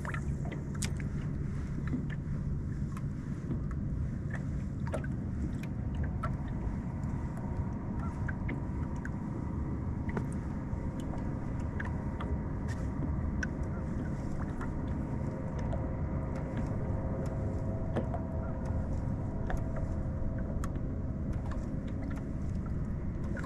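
Steady low rumble and faint hum around a small fishing boat on the water, with scattered light clicks.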